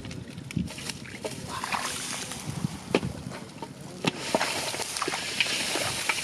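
Splashing and sloshing in shallow muddy water, with many irregular sharp splashes as hands grab at catfish in the mud, and a denser spell of splashing from about four seconds in.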